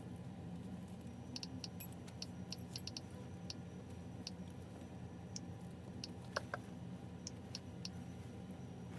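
Light, irregular sharp clicks, about fifteen in all, two slightly louder ones about six and a half seconds in, over a steady low hum, as a heap of secondhand clothes is rummaged through by hand.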